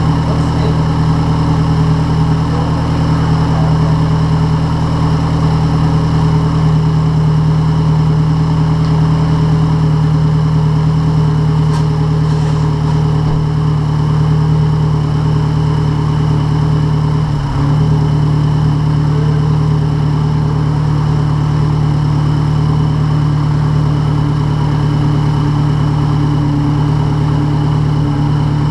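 Mazdaspeed 3's freshly rebuilt turbocharged 2.3-litre four-cylinder idling steadily on its first startup, with a brief dip in the engine note about two-thirds of the way through.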